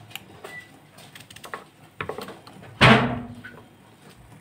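Kitchen knife cutting raw pumpkin on a wooden cutting board: a few light clicks and taps of the blade through the flesh and onto the board, with one louder knock on the board about three seconds in.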